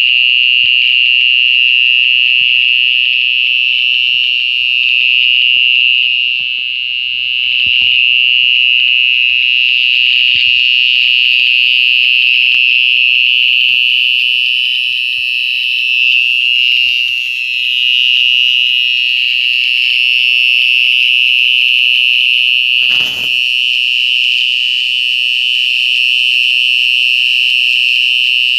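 Crickets calling at night in one continuous, loud, high-pitched trill that holds steady throughout, with a brief soft knock about 23 seconds in.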